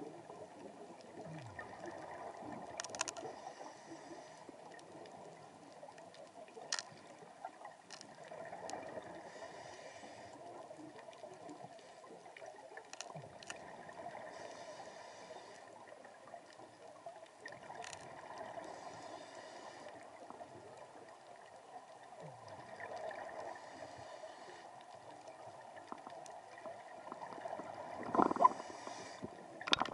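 Underwater bubbling from a scuba diver's exhaled breath, in bursts of one to two seconds that come back about every five seconds, over a faint steady hiss, with scattered sharp clicks. Near the end the bubbling is louder and there are a few knocks.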